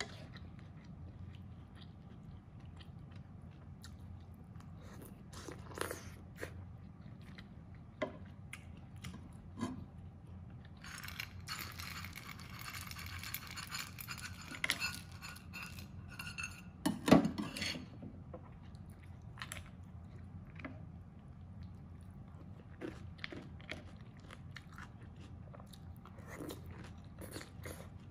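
Close-up eating sounds: chewing with scattered small clicks of a wooden spoon on the pan. Around the middle, fried peanuts rattle out of a stainless steel bowl onto the food for a few seconds. Shortly after comes a single sharp knock, the loudest sound.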